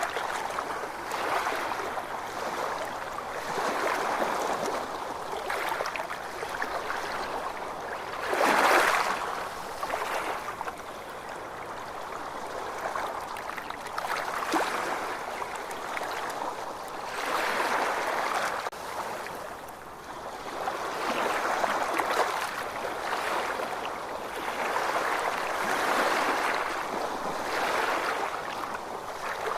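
Ocean waves washing in and drawing back: a hiss of water that swells and fades every few seconds, with the loudest swell about nine seconds in.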